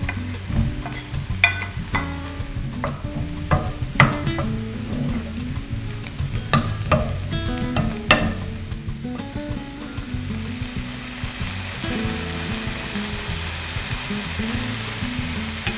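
Food sizzling in a frying pan, with a utensil clicking and scraping against the pan as it is stirred; the sizzle grows louder after about twelve seconds. Background music with a steady low bass line runs underneath.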